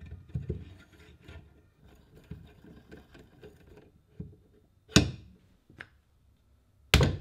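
Small metal clicks and rattles as the restored drill stand's feed lever is worked and its steel ball knob is handled, followed by two loud, sharp knocks about five seconds in and just before the end, as the metal stand is set down on a wooden table.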